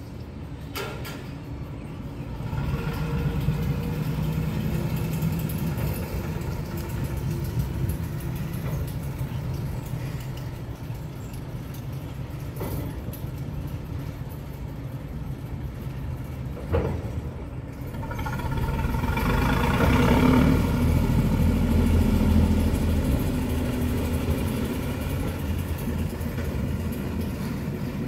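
Small Plymouth switcher locomotive's engine running as it pulls onto a turntable, with a couple of sharp metallic clanks. The engine gets louder past the middle and stays up for several seconds before easing back.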